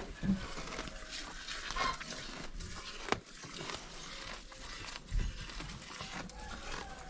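Calves munching fresh grass up close: irregular crunching and tearing of the stems, with a few sharper knocks.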